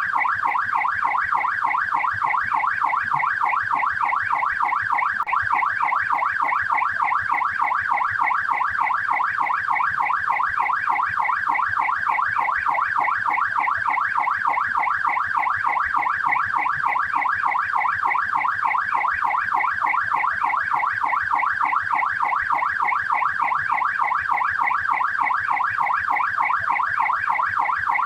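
Australian police car siren on its yelp setting: a fast up-and-down wail, several sweeps a second, repeating evenly without a break.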